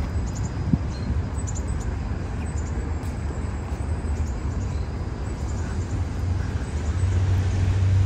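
Steady low rumble of road traffic, swelling near the end as a vehicle draws closer.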